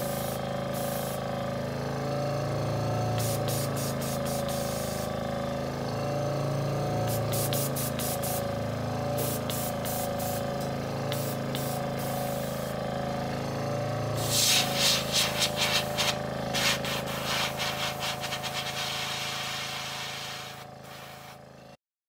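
Sparmax ARISM Viz oil-less single-piston airbrush compressor running with a steady hum. About fourteen seconds in, a fluttering rush of hissing air joins it. The sound fades near the end and then cuts off.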